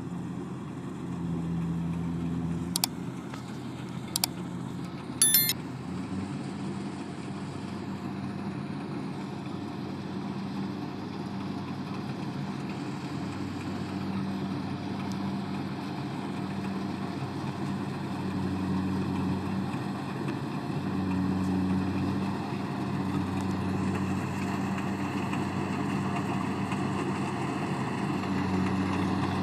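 A farm machine's engine running steadily. A few sharp clicks or knocks come in the first six seconds, the last with a short metallic ring.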